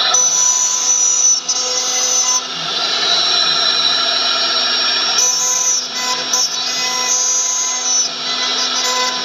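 A CNC router spindle runs at high speed while its end mill cuts slots into a wooden workpiece turned on a rotary fourth axis. It gives a steady high whine over the rasp of cutting wood.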